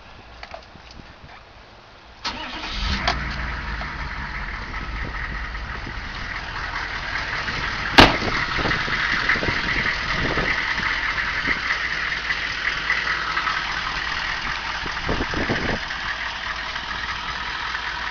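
A 6.5-litre turbo-diesel V8 is started about two seconds in. It catches quickly, then runs steadily with a deep rumble and a high turbo whistle over it. A single sharp click or knock comes about eight seconds in.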